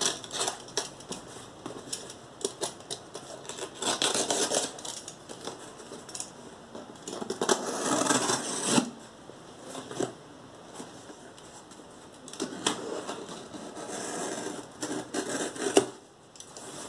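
Box cutter slitting the packing tape on a cardboard shipping box, then the cardboard flaps being worked loose and pulled open: several bursts of scraping and tape tearing with small clicks and taps between.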